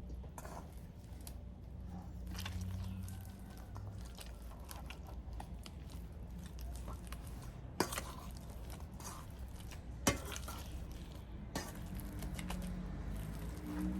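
Boiled cassava being mashed with a hand masher in a bowl: soft, irregular squishing and scraping, with a couple of sharper knocks of the masher against the bowl.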